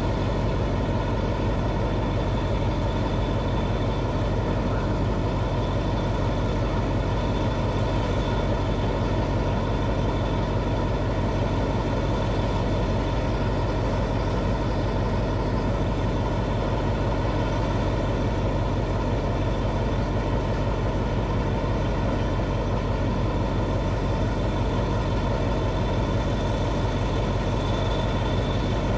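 Diesel locomotive of a loaded oil tank-car freight train idling while standing, a steady low engine rumble with a faint steady high tone over it.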